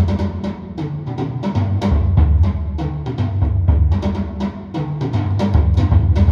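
Recorded music played back through hi-fi loudspeakers from a record on an SME Model 20/12 turntable: percussion-heavy, with deep bass and quick, sharp drum strikes several times a second.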